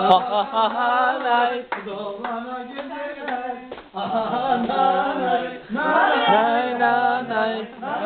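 Several voices singing a Turkish folk tune together, with a couple of hand claps.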